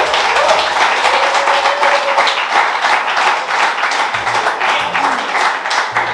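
A crowd applauding, many hands clapping at once, with music playing underneath; the clapping thins out slightly toward the end.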